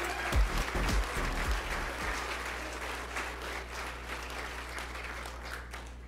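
Audience applauding, the clapping slowly dying away. The closing bass notes of background music end about two seconds in.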